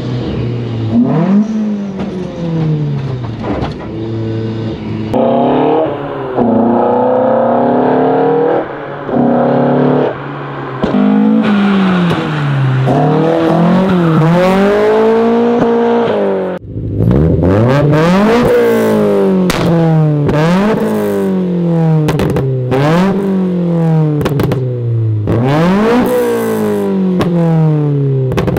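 Toyota AE86 Trueno's four-cylinder engine, first pulling hard with the pitch climbing and breaking off as it shifts gears, then, after a sudden cut about 16 seconds in, revved repeatedly at a standstill, each rise falling back, with sharp cracks from the exhaust between the blips.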